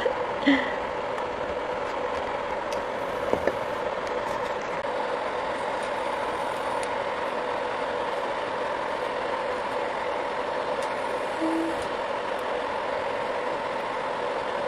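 Hestan Cue smart induction burner running at cooking heat: a steady two-tone hum with a fan-like rush under it, with a few light spatula scrapes against the pan about three seconds in.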